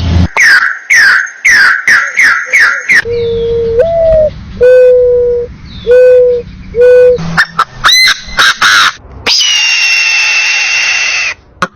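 Several different animal calls one after another. First comes a quick series of six or seven falling calls. Then four or five clear whistled notes follow, the first one stepping up in pitch, then a few quick rising calls, and last one long high call held for about two seconds.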